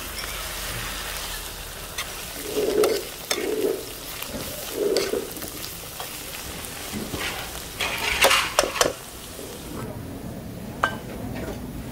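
Vegetables frying in oil in a nonstick pan, sizzling steadily while stirred with a plastic spoon, with a few louder scraping strokes in the first half. A few sharp knocks come around eight seconds in, and the sizzle drops away near the end.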